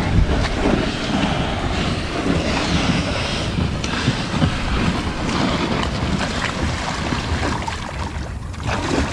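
Loaded plastic Crescent sit-on-top kayak being pushed over sand, its hull scraping and dragging, with steady wind noise on the microphone; the scraping eases off briefly about eight seconds in.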